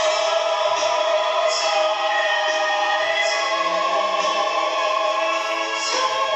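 Gospel worship song music with long held notes, shifting to a new chord near the end.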